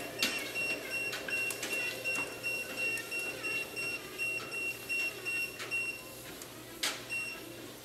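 Rapid electronic beeping at one high pitch, about two or three beeps a second, that stops about six seconds in and sounds once more near the end. Under it are scattered light footfalls on a portable walking-pad treadmill and a steady low hum.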